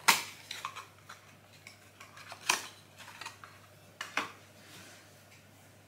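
Handling sounds as an advent calendar door is opened and a small packaged product is taken out: a few sharp clicks and taps, the loudest right at the start and others about two and a half and four seconds in, with light rustling between.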